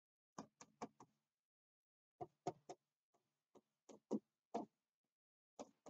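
Chalk on a chalkboard as words are written by hand: faint, short, sharp taps and clicks coming in small clusters, one per stroke or letter.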